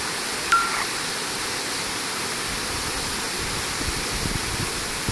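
Gega Waterfall falling about 55 metres down a cliff face: a steady rush of water. A short, high tone about half a second in rises above it.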